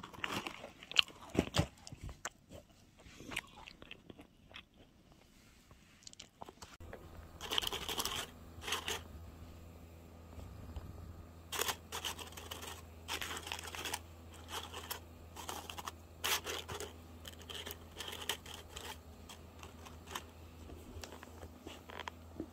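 Knocks and scrapes of a white cardboard gift box being opened, the loudest about a second in. Then repeated crinkling rustles of paper cupcake liners and plastic wrapping as macarons are handled, with a faint low hum coming in about seven seconds in.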